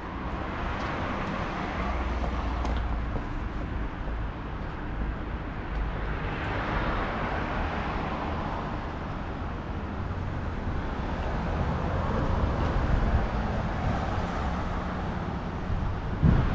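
City street traffic: a steady low rumble of road noise that swells as vehicles pass, with a low surge near the end.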